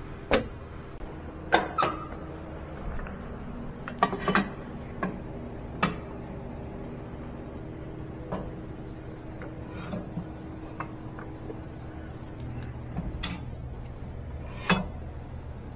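Metal tools and parts clinking and knocking now and then during hands-on work on a car's starter motor, over a steady low hum.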